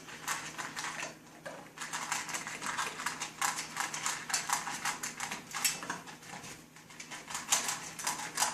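Dog eating his dinner fast from a bowl: rapid irregular clicking and clattering of food against the bowl, with brief pauses about a second in and again near the end.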